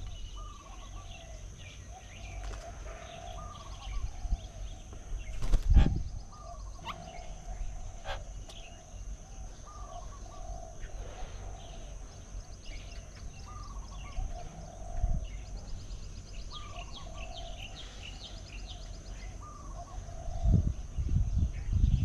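Outdoor birdsong: one bird repeats a short call every second or two, mixed with scattered higher chirps from other small birds. A couple of low bumps stand out, about six seconds in and again near the end.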